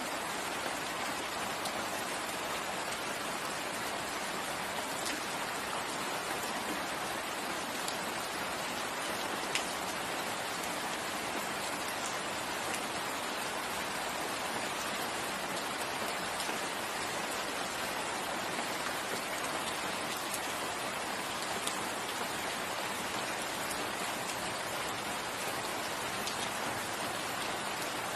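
Steady rain falling in a forest, an even hiss with a few individual drops ticking now and then.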